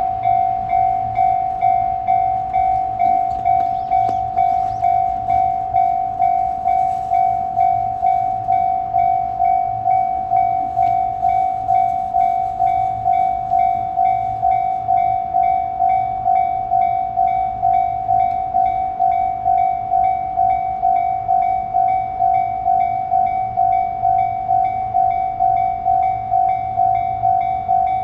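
A Japanese railroad crossing's electronic warning bell ringing steadily: a single-pitched ding repeated evenly, a little over twice a second, signalling that a train is approaching.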